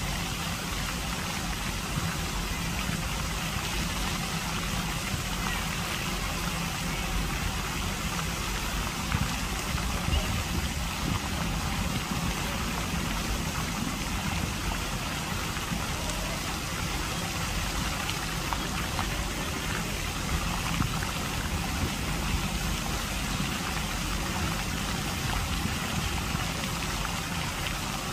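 Lake fountain jets spraying and splashing down onto the water in a steady hiss, with a low steady rumble underneath.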